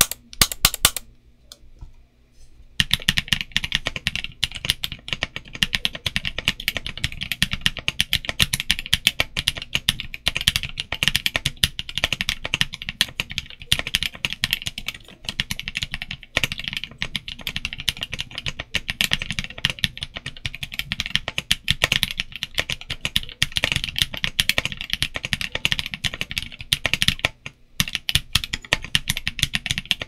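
Fast, continuous typing on an MKC75 mechanical keyboard built plateless over a case foam sheet, with Kailh Cream linear switches, WS stabilizers and doubleshot ABS keycaps. A few separate sharp clicks come in the first second, then a short pause, then steady typing from about three seconds in with a brief break near the end.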